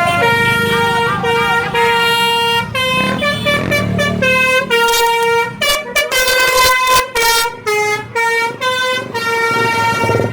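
Basuri multi-tone 'telolet' bus horn playing a tune: a string of held notes that step up and down in pitch, some long and some short, with a low rumble underneath during the first half.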